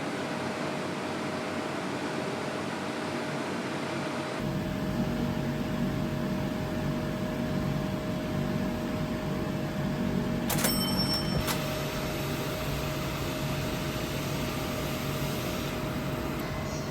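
Steady room noise with a constant electrical hum, and a short run of sharp clicks or clinks about ten seconds in.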